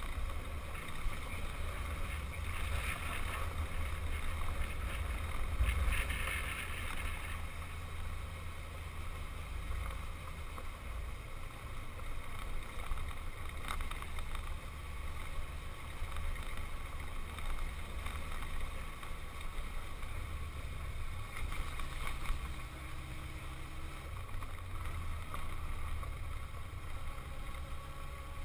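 Yamaha XJ600 Diversion's air-cooled inline-four running at a steady cruise on a dirt road, heard as a muffled, steady low rumble mixed with wind buffeting on the camera microphone.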